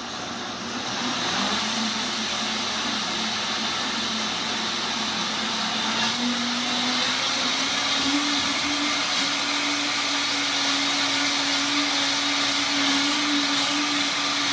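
Vitamix blender running loud, churning a thick kale and zucchini smoothie with the tamper pushed in. Its motor pitch steps up three times, about one and a half, six and eight seconds in, as the speed is raised.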